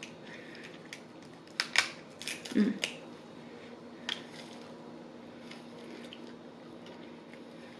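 Cooked crab leg shell being cracked and snapped apart by hand: a cluster of sharp cracks and clicks about two seconds in, and one more around four seconds.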